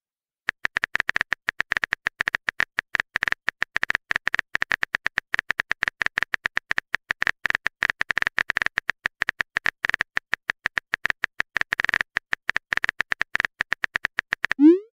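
Rapid, irregular clicking of a phone-keyboard typing sound effect, many clicks per second, as a chat message is typed. Near the end the clicks stop and a short rising swoop plays as the message is sent.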